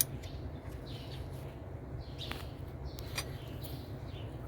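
A few sharp metallic clicks of hand tools on the valve gear of a 6D16 diesel engine, with the rocker arm adjusting screws and lock nuts being set and tightened, over a steady low hum and faint chirps in the background.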